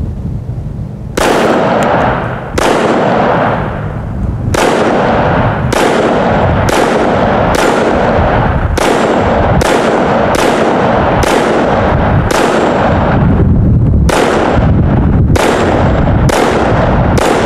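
Walther WMP .22 Magnum (.22 WMR) semi-automatic pistol fired in a steady string of about fifteen shots, roughly one a second, with one short pause past the middle. Each sharp crack trails off in a long echo. Wind rumbles on the microphone underneath.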